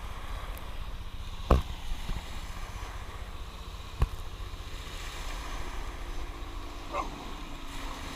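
Wind rumbling on the microphone over the wash of small waves breaking on the beach, with two sharp knocks, one about a second and a half in and one about four seconds in.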